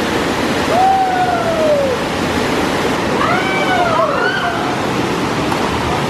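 Waterfall pouring steadily into a pool, with people calling out over the rush a few times.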